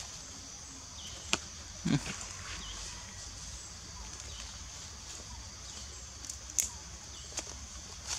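Forest ambience: a steady high-pitched insect drone, with a few sharp clicks scattered through and a short low thump about two seconds in.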